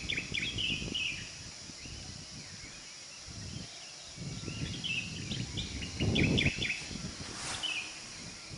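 Small birds chirping in clusters of quick high notes, most busily near the start and again toward the end. Underneath runs a steady high hiss and a low rumble that comes and goes.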